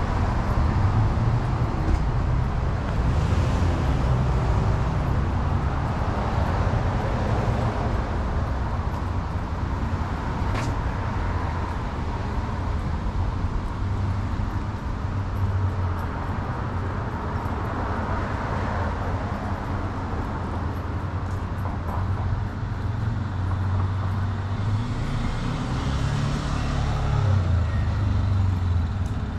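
Downtown street traffic: a steady low rumble of cars, with a few swells as vehicles pass, the clearest near the end.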